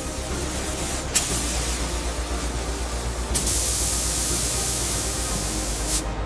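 Hissing spray: a short burst about a second in, then a longer, louder spray that starts suddenly and cuts off near the end, over a steady low hum.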